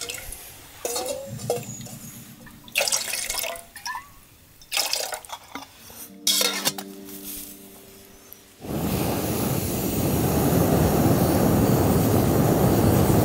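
Scattered clinks and scrapes of a metal pot on a small wood-burning camp stove, then about two-thirds of the way in a sudden loud, steady rush of air as breath is blown through a metal blow tube into the stove to fan the fire.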